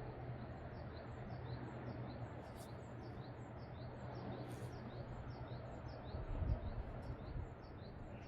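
A small bird calling over and over in short, high, falling chirps, about two a second, over a steady rushing background noise, with a low bump about six and a half seconds in.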